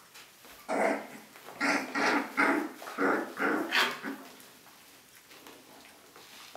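Border Collies vocalizing in play, adult and young puppy together: a quick run of about seven short, growly yelps and barks over the first four seconds, then it goes quiet.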